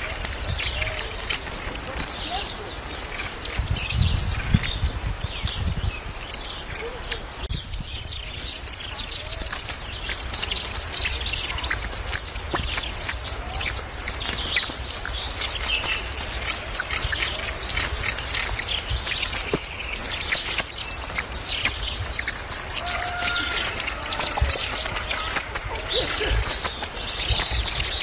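Red-necked tanager singing: a long, unbroken run of rapid, very high, thin notes, with scattered fainter chirps beneath.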